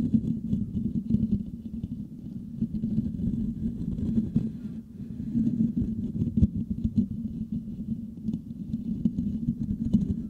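Fingertips scratching the metal mesh grille of a Blue Yeti microphone right at the capsule: a continuous, deep, rustling scratch that rises and falls rapidly, with a few sharper clicks.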